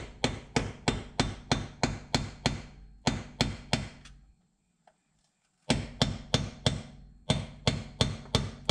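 Hammer striking a screwdriver wedged into the seam of an AMC 20 axle's differential cover: rapid sharp blows, about four to five a second, driving the blade in to break the cover's seal. The blows stop for about a second and a half near the middle, then resume.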